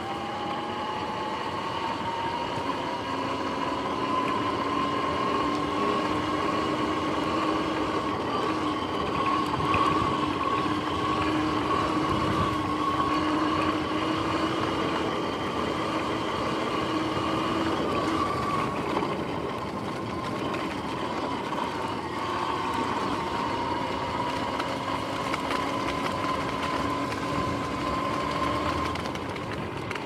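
Sur-Ron X electric dirt bike's motor and drivetrain whining under way. The whine rises in pitch as the bike speeds up over the first few seconds, holds steady, dips about twenty seconds in as it slows, climbs again and falls away near the end. Tyre and wind noise run underneath.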